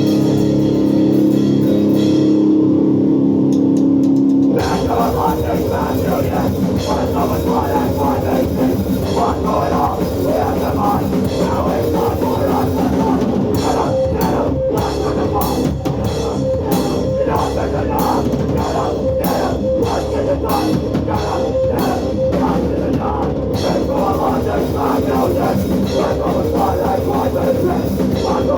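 A live hardcore power violence band playing loud. Distorted guitar chords ring out alone at first, then the drums and full band come in about four and a half seconds in and keep going at a driving pace.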